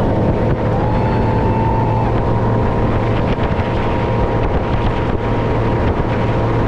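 Motorboat running at speed: a steady engine drone with rushing wake water and wind buffeting the microphone.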